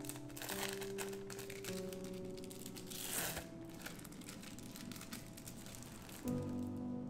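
Crisp crinkling and rustling of food preparation for about the first three and a half seconds, strongest around three seconds in, then fading, over soft background piano music.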